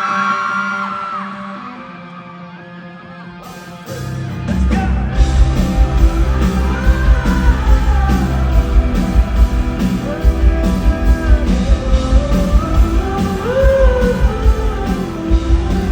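Live rock band playing with a sung vocal line. A quiet held opening lasts about four seconds, then drums, bass and guitar come in fully with a strong steady beat.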